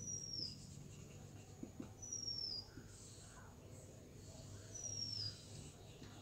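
A bird's high, thin whistled call, falling in pitch, repeated three times a couple of seconds apart. Faint scratching of a marker on a whiteboard and a low steady hum lie under it.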